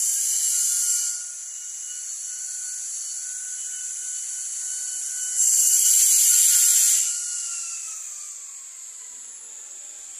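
A power tool running, a high hiss that swells twice, with a whine that falls in pitch over the last few seconds as the motor winds down.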